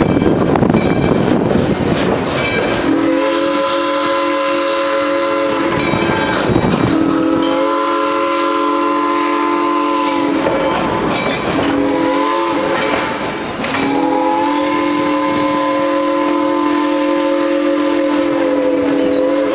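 Steam locomotive's chime whistle blowing the grade-crossing signal: two long blasts, a short one and a final long one, each sliding a little in pitch as it starts and stops. Before the first blast, the coaches rumble and clatter along the rails.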